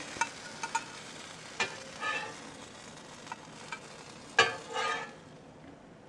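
Pancakes sizzling faintly on a griddle while a metal slotted spatula scrapes under them and sets them down on a plate: several short scrapes and clicks, the loudest about four and a half seconds in. The sizzle drops away about five seconds in.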